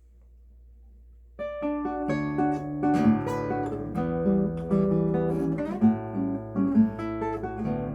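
Classical nylon-string guitar playing a solo piece, with plucked notes and chords that ring on over one another. The playing begins about a second and a half in, after a faint low hum.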